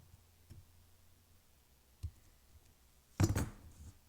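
Handling noise: a few soft knocks, then a short, loud clatter about three seconds in, like metal tools being knocked or set down.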